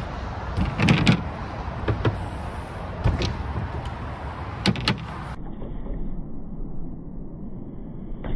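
BMX bike tyres rolling on skatepark concrete, with a handful of sharp clacks and knocks from the wheels and frame hitting ramp edges and landing. After about five seconds the sound turns duller, and another knock comes near the end.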